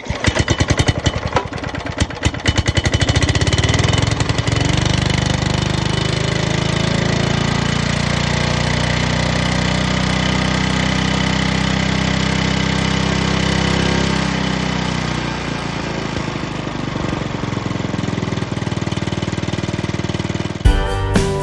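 Briggs & Stratton engine of a Hayterette Professional rotary mower running after a full service. It fires unevenly for the first few seconds, then settles and speeds up, holds a steady speed, and slows again a few seconds before it cuts off near the end.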